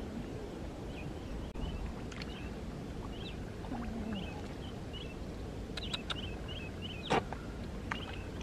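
Bare feet wading through shallow water and soft mud, sloshing and squelching, with one sharp splash-like knock about seven seconds in. Short high chirps repeat over it.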